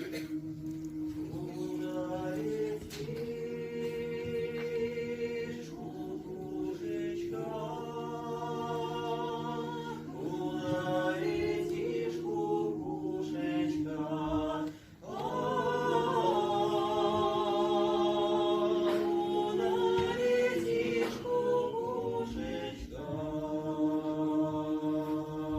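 Folk vocal ensemble singing a song in harmony, several voices holding long notes with vibrato. There is a short break about fifteen seconds in, then the singing comes back louder.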